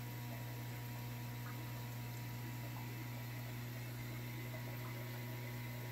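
Steady low electrical hum with a faint hiss, from the room's running aquarium equipment.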